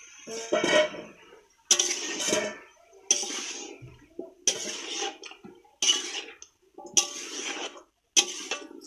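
Stirring a pan of chopped cauliflower, potato, carrot and peas into the spices: a utensil scrapes against the pan and the vegetables clatter about, in about seven strokes roughly a second apart.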